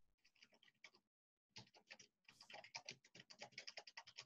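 Near silence, with faint, quick computer-keyboard typing starting about two and a half seconds in, several key clicks a second.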